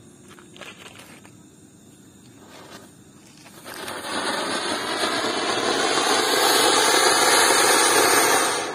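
Cone fountain firework: a few faint crackles while the fuse burns, then about three and a half seconds in it ignites into a loud, steady rushing hiss of spraying sparks that builds and holds, cutting off near the end.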